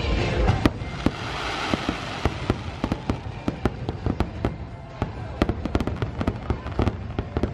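Fireworks barrage: a rapid string of sharp bangs and pops from bursting shells and launches, several a second, coming thicker in the last few seconds.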